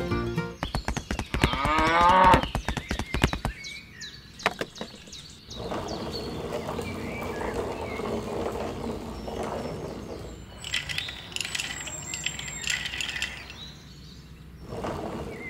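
Cattle mooing several times, with one long, steady moo in the middle and higher calls after it. A run of clicks sounds in the first few seconds.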